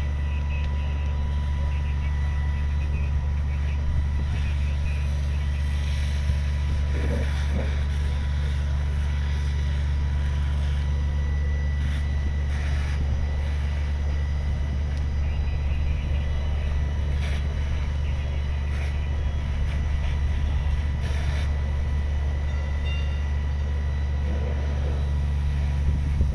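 Fire truck's diesel engine running steadily under pump load, a low, even drone.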